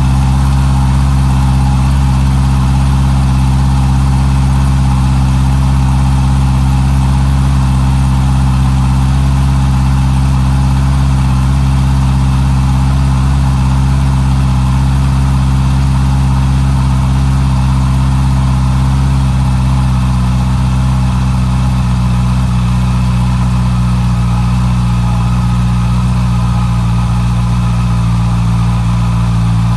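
Honda CB650R's inline-four engine idling steadily through its stock exhaust.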